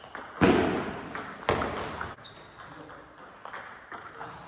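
Table tennis ball being hit back and forth in a rally: sharp, separate knocks of ball on bat and table. The loudest hit comes about half a second in.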